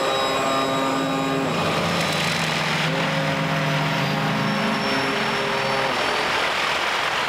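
Rushing of rough sea water with a drone of held tones that shift pitch every second or two.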